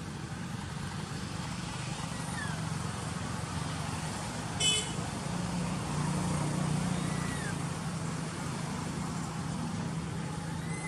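Steady low rumble of distant road traffic, with a bird's short arched whistle repeating every few seconds and one brief sharp call about halfway through.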